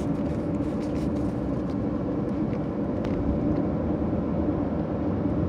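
Car interior noise while driving: engine and road noise heard from inside the cabin, a steady hum.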